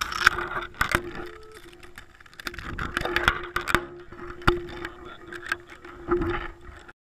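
Handling and bumping noise from a GoPro camera jolted about close to the ground: irregular sharp knocks and rattles over a faint steady hum, cutting off just before the end.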